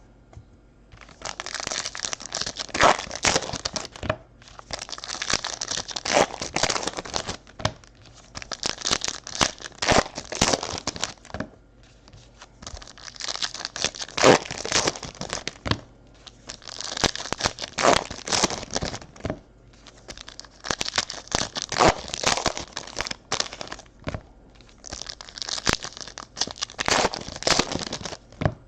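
Foil trading-card pack wrappers being ripped open and crinkled, in about seven crackly bursts of two to three seconds each with short pauses between them.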